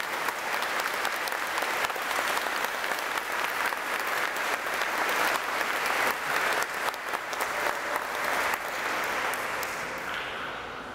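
Congregation applauding: dense, steady clapping that dies away near the end.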